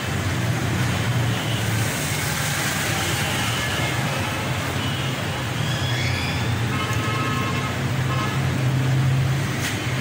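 Steady low engine-like hum over traffic noise.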